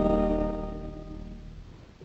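Organ holding a final chord of several notes, which fades out over about a second.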